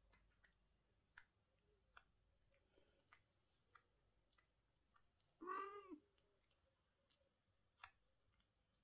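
A cat gives one short meow that rises and falls, a little past halfway, over faint scattered clicks.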